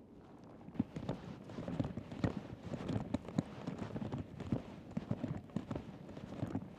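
A Yamaha MT125's single-cylinder 125cc engine through a full Akrapovic exhaust, crackling and popping in a rapid, irregular string of sharp pops that starts about a second in.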